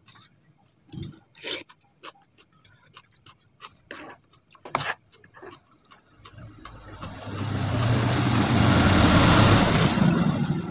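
Scattered clicks and taps of a metal spoon and plastic fork working in a plastic bowl of chicken noodles, then a long, loud slurp of noodles and broth from the spoon lasting about four seconds near the end.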